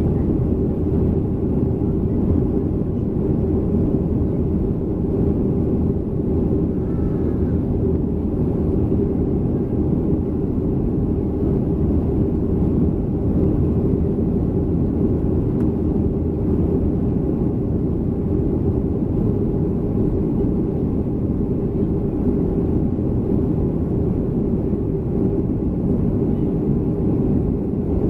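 Steady low rumble of a Boeing 737-300's CFM56-3 engines and airflow heard inside the passenger cabin, unchanging throughout.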